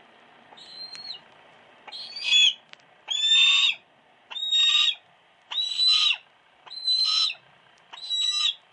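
Female hawk calling repeatedly: seven pitched calls at a steady pace of about one a second, each about half a second long, the first one fainter than the rest.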